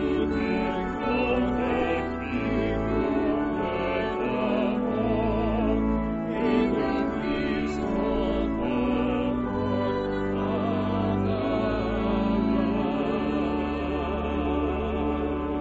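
Small mixed choir singing a hymn verse in parts, with vibrato on long held notes, closing on a sustained final note near the end.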